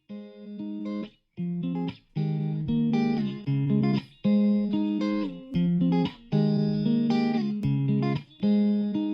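Background music: a plucked-string tune in short phrases, broken by brief silent gaps every second or two.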